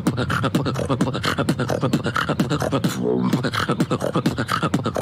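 Human beatboxing: a fast, dense rhythm of mouth-made kick, snare and click sounds, with a short pitched vocal bass sound about three seconds in.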